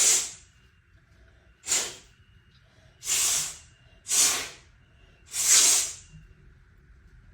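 Five short, loud bursts of blown air hissing over a chainsaw spark plug to clear off the excess fuel from a flooded, glossy plug.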